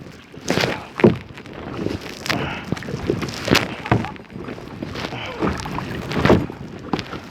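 Kayak paddle strokes splashing in the water, a short splash roughly every second.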